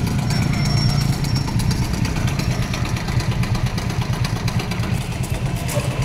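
Motorcycle engine running steadily with a low, even hum.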